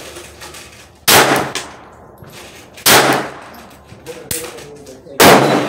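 Glock 44 .22 LR pistol firing three single shots about two seconds apart, each with a short ringing tail, plus a fainter click between the last two.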